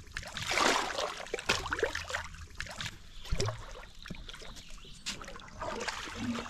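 Creek water sloshing and splashing around a person moving in it, with irregular washes and small clicks; louder in the first two seconds, then softer lapping.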